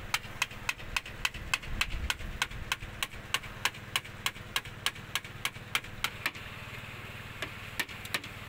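Small hammer tapping a chisel against a steel excavator window frame, sharp metallic knocks about three a second with a brief pause about six and a half seconds in. A steady low engine hum runs underneath.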